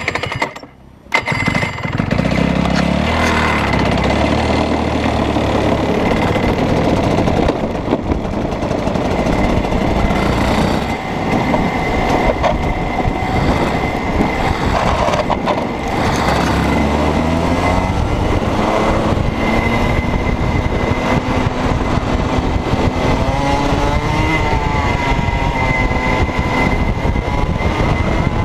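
Rotax 125cc two-stroke kart engine, heard onboard from the driver's seat, firing up about a second in, then running hard as the kart drives off. Its pitch rises and falls with the throttle through the corners and straights.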